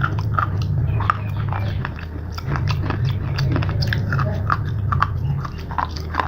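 Close-miked biting and crunchy chewing of slate pencils: a quick run of sharp crackling crunches, over a low steady hum.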